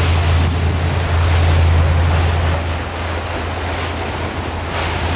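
Motorboat engine running with a steady low hum, under wind noise on the microphone and the wash of water around the boat.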